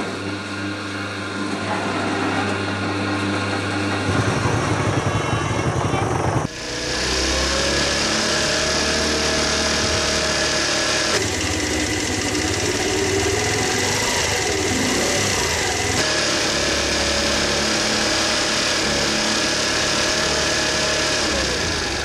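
A hand-cranked sugarcane juice press being turned, ending in a fast rattle; then, from about six seconds in, a moped's small engine running as it rides along a dirt road, its pitch rising and falling.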